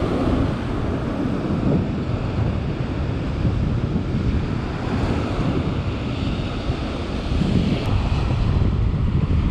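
Ocean surf breaking and washing up the sand, with wind buffeting the microphone in a heavy low rumble.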